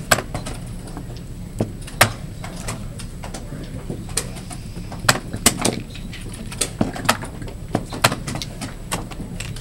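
Plastic chess pieces clacking down on a vinyl board and the buttons of a digital chess clock being slapped in fast blitz play, a sharp click every second or so, sometimes two in quick succession, over a steady low hum.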